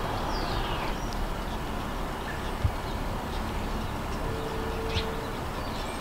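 Faint bird calls over a steady low background rumble: one descending call near the start and a few short chirps about five seconds in.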